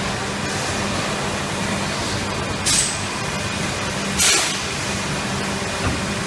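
RP Injection 270 PM-CE PET preform injection moulding machine running, a steady mechanical hum with two short, sharp hisses of air, the first about two and a half seconds in and the second a second and a half later, and a faint click near the end.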